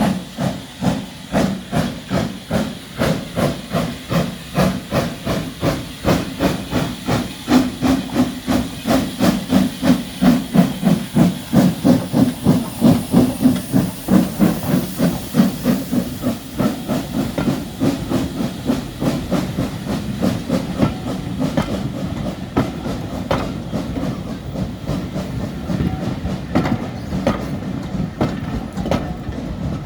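Steam locomotive pulling a train, its exhaust chuffing in a regular beat with hissing steam. The beat is loudest around halfway, then fades into a steadier rumble of rolling carriages with the odd click of wheels over rail joints.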